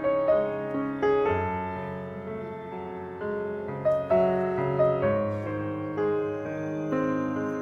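Background piano music: slow, gentle notes and chords struck and left to ring.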